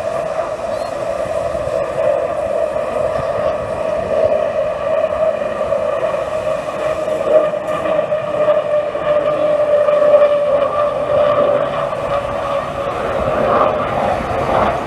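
Avro Vulcan's four Rolls-Royce Olympus turbojets at a steady, loud whine as the jet passes overhead, made of several pitched tones over a rushing roar. Wind buffets the microphone underneath.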